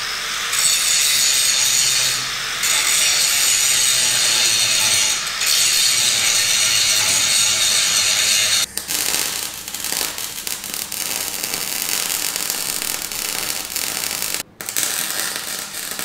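Angle grinder grinding back weld beads on a steel frame: a steady loud grind with a couple of brief dips. About nine seconds in it gives way to the crackling sizzle of arc welding, broken once by a short gap near the end.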